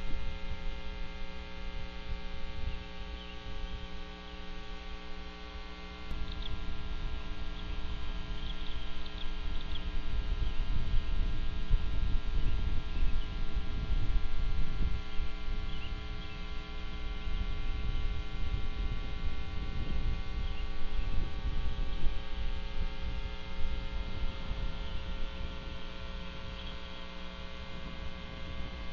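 Steady electrical hum from the nest camera's audio, a stack of constant tones, over a low rumble that swells from about six seconds in and eases off near the end. A few faint, short high chirps come through now and then.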